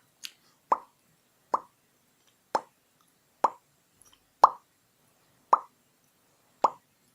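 Wet-lipped mouth pops imitating bubbles: seven short plops about a second apart.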